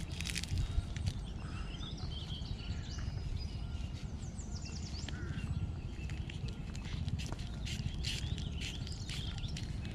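Outdoor ambience of birds chirping, with a quick trill about halfway through, over a low rumble of wind on the microphone. A few soft clicks and crinkles come from a paper sachet being torn and handled.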